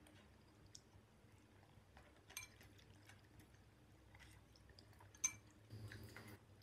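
Fork and chopsticks clinking against a glass bowl of instant noodles in broth while stirring: two sharp clinks, about two and a half and five seconds in. A brief wet, louder stretch near the end as the noodles are lifted out of the broth.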